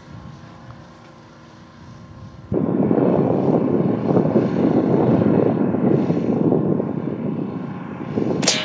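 A loud, steady rushing noise starts abruptly a couple of seconds in. Near the end it is cut through by one sharp report: the Brocock Concept XR .22 air rifle firing a pellet on its low-power setting.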